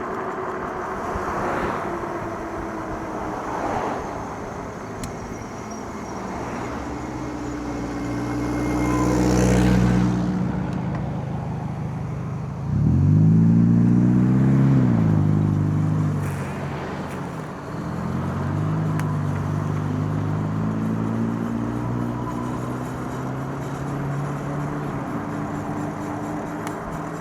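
Road traffic: motor vehicle engines pass over steady road noise, and one engine revs up loudly about halfway through, then eases off.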